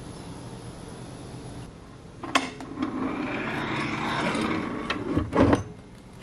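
A hinged wooden fold-out tabletop being folded down by hand: a click, then wood rubbing and scraping for about three seconds, ending in a few knocks as it comes to rest against the cabinet frame.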